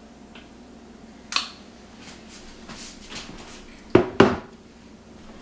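Hard objects being handled: a sharp click, a few light taps, then two loud knocks in quick succession near the end.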